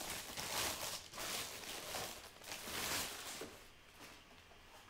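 Thin plastic bag rustling and crinkling in a few uneven stretches as it is handled, dying away about two-thirds of the way through.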